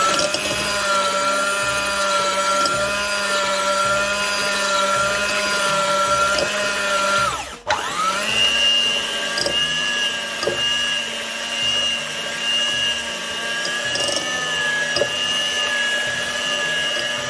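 Hand-held electric mixer with twin wire beaters running steadily as it beats eggs and sugar in a bowl. About halfway through it cuts out for a moment and comes back at a higher pitch, running faster.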